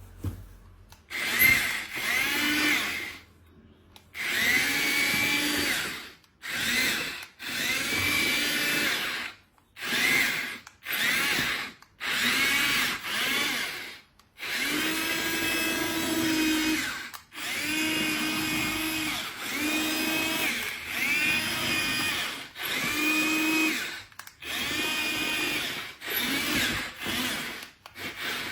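Small battery-powered toy motor whirring in repeated short runs, switched on and off over and over; each run spins up with a rising whine, then holds steady.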